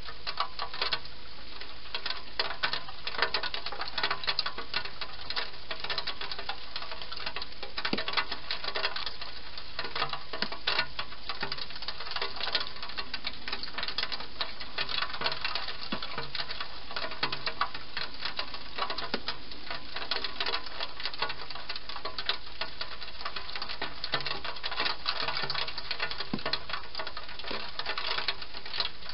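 Wild hedgehog eating from a dish inside a plastic feeding box: a steady, fast run of small crunching and clicking chews.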